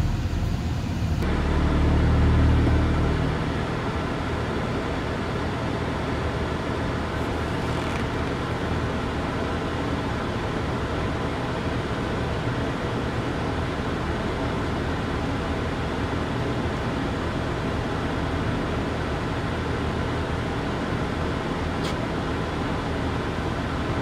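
Steady low hum of a car at idle, heard inside the cabin, with a brief louder low rumble about two seconds in.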